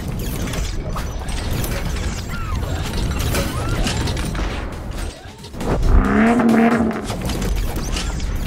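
Sound-effect design for an animated intro: a dense run of mechanical clicks, ratcheting and clanking metal parts snapping together. A brief pitched tone swells up for about a second around six seconds in.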